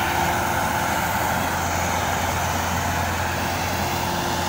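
Mahindra 415 DI tractor's diesel engine running steadily as it pulls a stuck, log-laden trailer out of the mud.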